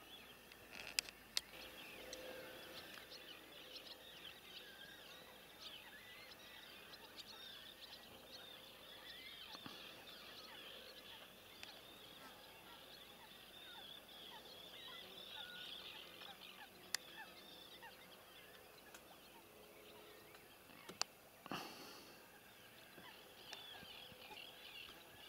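Faint, continuous chatter of many birds calling at once around a reedy lake. A few sharp clicks stand out, near the start and twice later on.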